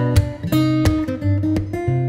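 Background music of a strummed acoustic guitar: chords struck in a steady series of strokes.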